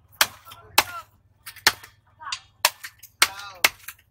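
Large knife chopping through a hamour (grouper) on a wooden log chopping block: about six sharp, irregularly spaced chops.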